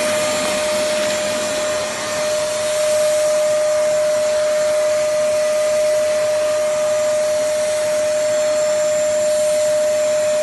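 Black+Decker BXVC30XTDE 1600 W wet/dry vacuum cleaner running steadily: a loud rushing hiss with a high, even whine from the motor. It cuts off suddenly at the end.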